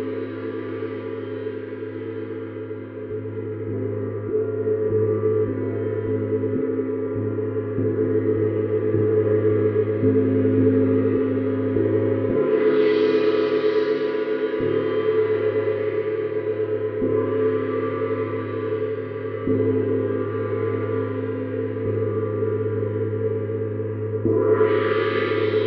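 Neptune gong played continuously with a mallet: a sustained ringing of many overlapping tones that grows louder over the first few seconds and brightens sharply with a wash of high overtones about halfway through and again near the end.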